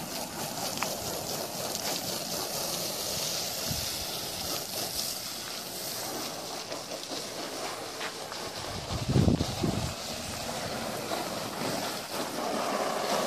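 Garden hose spraying a steady stream of water, a continuous hiss. About nine seconds in, a brief low rumble of wind on the microphone is the loudest sound.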